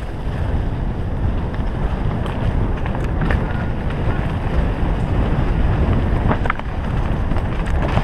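Wind buffeting the microphone of a camera on a mountain bike riding fast down a forest trail, with the tyres rolling over leaf litter. A few sharp knocks come about three seconds in and again past six seconds.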